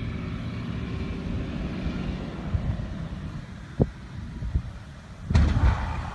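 Wind rumble on the microphone over the quiet engine note of a single-engine biplane on its landing approach, engine at idle. About five seconds in, a sudden loud burst of noise as the aircraft strikes the ground short of the runway and tips onto its nose.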